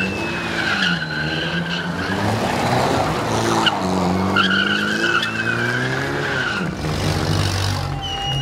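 Opel Kadett A's small four-cylinder engine revving up and down as the car is driven hard around a cone, with its tyres squealing twice.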